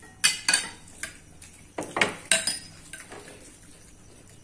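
Metal spoons clinking and tapping against bowls and plates as golgappa puris are filled: a quick, irregular run of sharp clinks, some ringing briefly.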